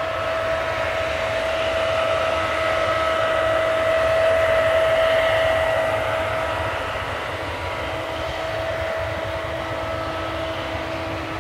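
Case combine harvester running while harvesting barley: a steady mechanical drone with a constant whine over a low rumble, growing louder to about four seconds in and easing off a little after six.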